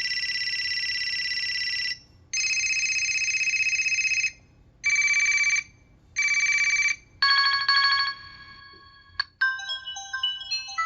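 Electronic ringtones from a T-Mobile HD2 (HTC) phone: a run of steady electronic tones, two lasting about two seconds each, then two short beeps and a tone that fades away. After a click about nine seconds in, a quick electronic melody of short notes begins.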